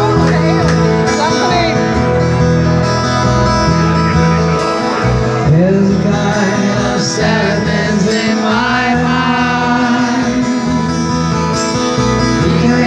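Live band playing a song on guitars, bass, keyboards and drums, with a man singing lead over it.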